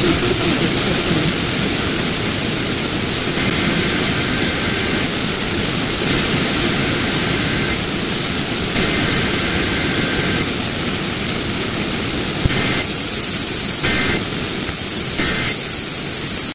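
Steady radio static hiss from a weakly received broadcast signal, with a few short louder crackles near the end.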